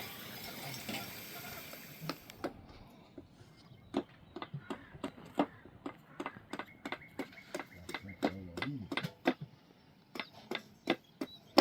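An even hiss for about the first two and a half seconds, then a string of irregular sharp clicks and knocks, a few a second.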